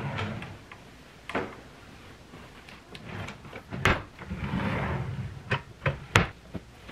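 Wooden dresser drawers sliding open and being pushed shut: a sliding rumble at the start and another about four to five seconds in, and several sharp knocks as drawers bump closed.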